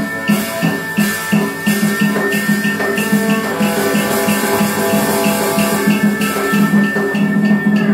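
Tuồng (Vietnamese classical opera) music: percussion keeping a steady beat of about three strokes a second under a long held high note.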